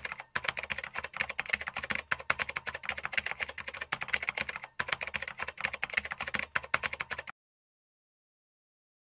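Rapid keyboard typing clicks, a typing sound effect, with two brief pauses, stopping abruptly about seven seconds in.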